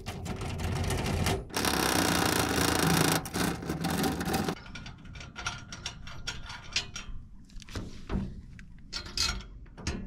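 Metal hardware being worked on aluminium mounting rails: a loud scraping stretch of about three seconds, then scattered clicks and taps of clips and fasteners being set.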